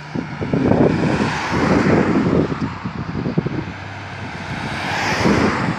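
Wind buffeting the microphone, a rough, irregular low rumble that swells twice, over outdoor street traffic noise.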